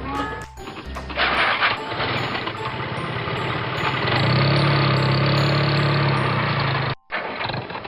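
An engine running steadily, with light background music of evenly repeating high notes; the sound cuts out for a moment near the end.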